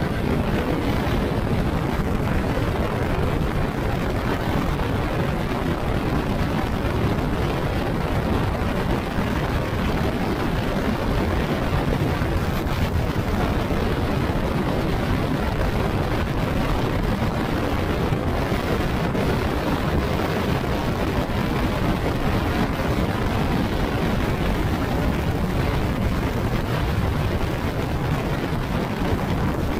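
Steady, loud rumble of wind and road noise while riding, with no distinct engine note standing out.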